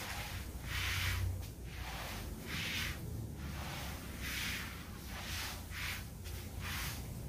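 Water spraying from a hose spray wand onto soil-filled seedling trays, a hiss that swells and fades every second or two as the spray sweeps back and forth. A low rumble runs underneath.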